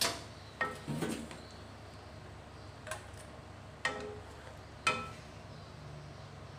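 Black cooking spatula knocking against a coated wok and a stainless steel bowl as a finished tofu stir-fry is scooped out. About six sharp clinks, several with a short metallic ring, come at the start, around one second, and near three, four and five seconds.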